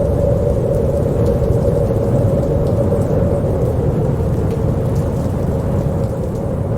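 Wind howling steadily: a deep, rushing rumble with a moaning tone held at one pitch.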